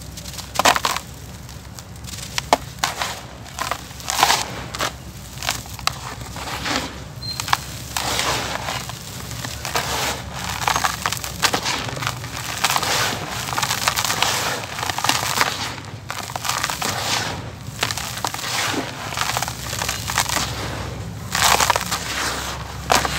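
Lumps of dry, crumbly brown dirt crushed by hand, with gritty crunching and loose grains falling into the tub. From about eight seconds in, hands dig into and push the loose dry dirt in a denser, continuous gritty crunching.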